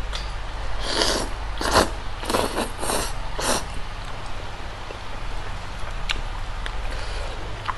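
Spicy Korean noodles being slurped in about five short, noisy pulls over two and a half seconds, then a couple of light clicks.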